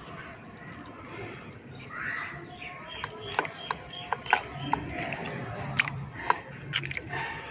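A metal fork clicking and scraping against a plate and the trotter bones as it picks through beef paya, several sharp clicks in the second half over a steady background murmur.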